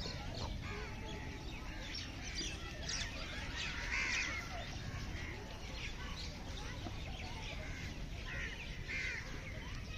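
Birds chirping and calling, many short scattered calls over a low steady rumble.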